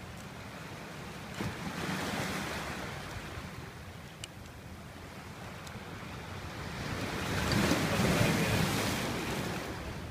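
Sea waves washing in over a pebble beach, swelling twice, the second surge, about seven seconds in, the louder, with a few faint clicks between them.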